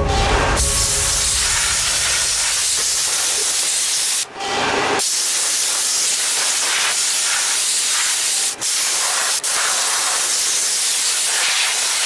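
Dry ice blaster nozzle firing pellets on compressed air into a car's wheel well: a steady hiss that cuts out for about a second some four seconds in, then stops for an instant twice more later on.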